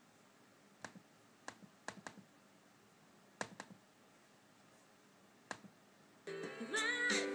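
A handful of sharp, irregular clicks from a laptop's keys or trackpad, then music starts playing loudly from the laptop about six seconds in.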